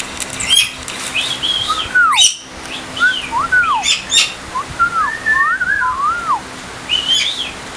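Galah calling: a run of short whistled notes that rise and fall, with a few harsh squawks mixed in about half a second, two seconds and four seconds in.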